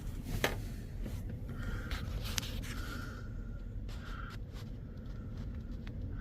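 Strong wind buffeting, heard as a steady low rumble with a few faint clicks.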